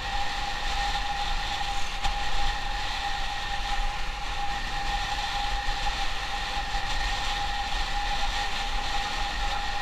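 Motorcycle running at a steady cruising speed, with wind rush and a steady high-pitched whine.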